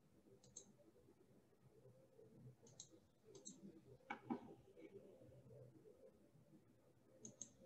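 Faint computer mouse clicks over near silence: about four quick press-and-release click pairs, spaced a second or more apart.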